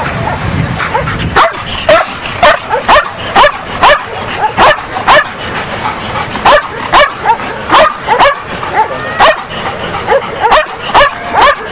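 A Belgian Malinois barking steadily at a decoy, about two sharp barks a second, starting in earnest about a second and a half in. It is the guard-by-barking of ring sport: the dog holds the man at bay with barks instead of biting.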